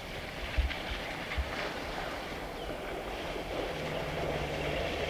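Water splashing and rushing as two elephants wade and push through a shallow river, with a few low thumps in the first second and a half and a short low hum about four seconds in.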